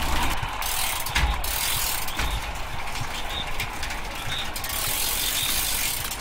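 A peloton of road racing bicycles passing close by: many freewheel hubs ticking as riders coast, over a steady rushing hiss of tyres on asphalt.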